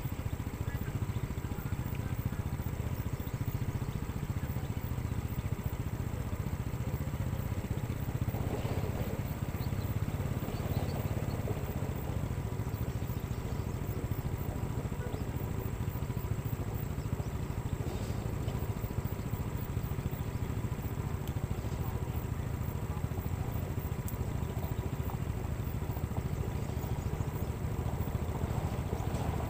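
Caterpillar 120H motor grader's diesel engine running steadily with a low, even hum as the machine works along the road, levelling loose red stone with its blade.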